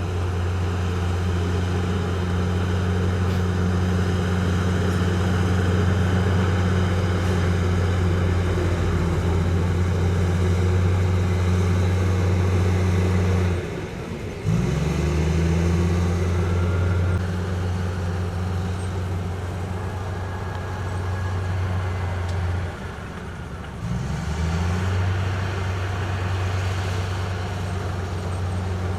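Heavy diesel engine of construction machinery running steadily. About halfway through the revs drop and then climb back up, and the same happens again about three-quarters of the way through.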